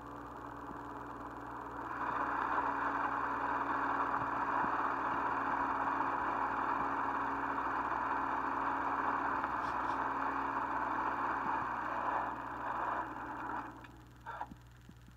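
Steady noise of a Chinook ultralight on skis sliding over snow after landing, heard as a playback through a small speaker. It swells about two seconds in, dies away near the end, and a few light clicks follow.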